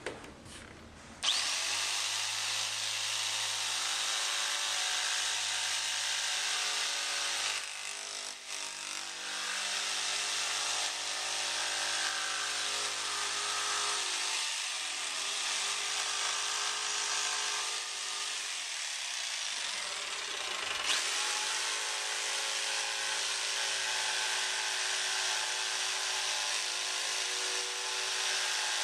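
Electric jigsaw switched on about a second in, then running steadily as its blade cuts through particle board. The motor's pitch sags and recovers a few times as the blade is steered round a curve.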